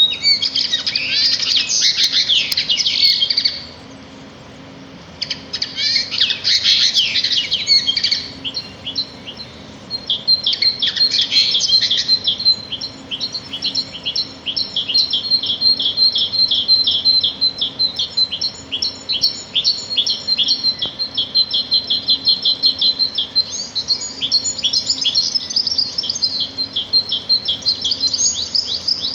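Small songbirds chirping and singing: high, rapid chirps in bursts with short gaps, then a long unbroken run of quick repeated chirps from about twelve seconds on.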